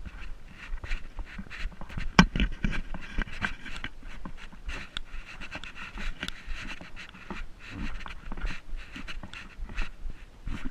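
Footsteps crunching irregularly on a stony trail, with heavy panting breath.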